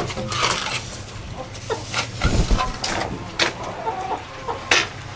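Chickens clucking, with a few sharp knocks and a dull thud about halfway through.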